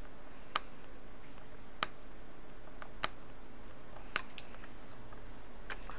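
Small sharp metallic clicks from steel tweezers tapping at a capacitor on an iPhone logic board under the microscope. There are four distinct clicks about a second apart, then a few fainter ticks near the end.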